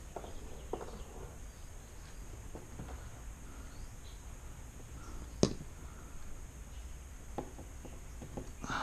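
Hands and tools working on a car's interior trim and fasteners: scattered light clicks and handling noises, with one sharp click about five and a half seconds in.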